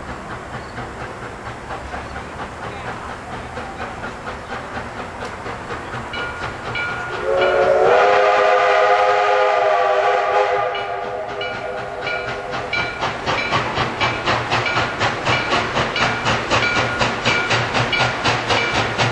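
Steam locomotive working, its exhaust chuffing in a steady rhythm that grows louder toward the end. About seven seconds in, the steam whistle sounds one long chord of several notes for about three seconds, sliding up in pitch as it starts.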